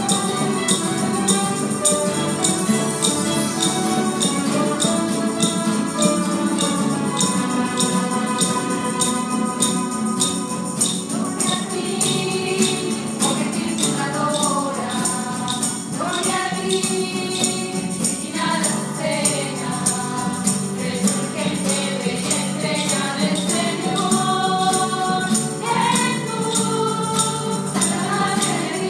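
A hymn sung by a group of voices over a steady jingling tambourine beat; the singing stands out more clearly after about ten seconds.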